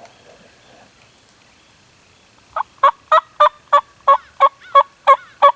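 A series of about ten loud, evenly spaced turkey yelps, about three a second, beginning a little over halfway through.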